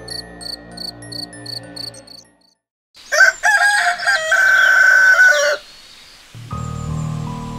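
A rooster crowing once, a long crow of about two and a half seconds that is the loudest thing here, coming after a short stretch of soft music with quick chiming notes that stops. Low, steady background music comes back near the end.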